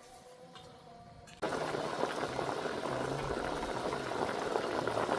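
A pot of broth bubbling hard at the boil, starting suddenly about a second and a half in and going on steadily. Before it, a faint cooing, as of a dove.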